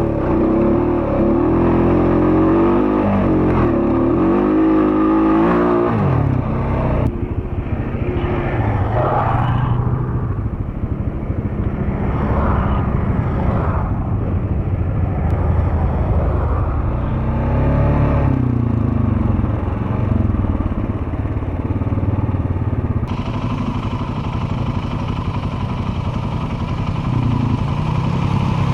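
ATV engine running while riding a rough trail, its pitch rising and falling with the throttle, with clatter from the machine over the ground. The sound changes abruptly about six seconds in and again near the end.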